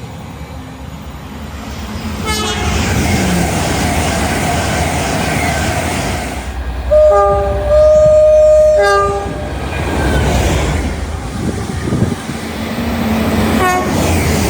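A train passing with a steady rumble and rush of wheels on rail. About seven seconds in it sounds its two-tone horn in a loud blast of about two seconds, the low and high notes sounding together and then in turn.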